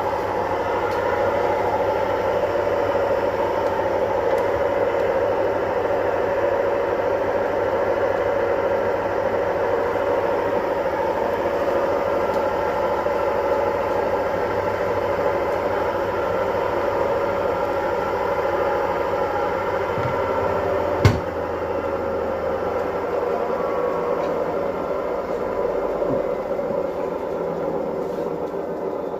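Hisense PureJet Steam 10 kg washing machine on its final spin at 800 rpm: a loud, steady hum from the spinning drum and motor. One sharp click comes about two-thirds of the way through.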